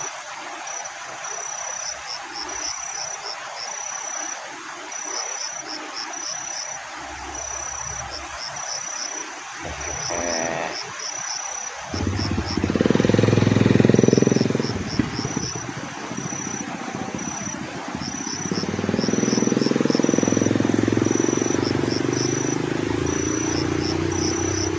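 Insects chirping steadily in a fast, even pulsing pattern. About halfway through a low rumble sets in. In the second half a motor engine's drone rises slowly in pitch and then holds steady.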